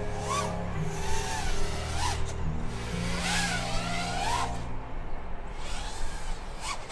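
Electric motors and propellers of an FPV quadcopter in flight, whining in a pitch that swoops up and down again and again as the throttle is worked.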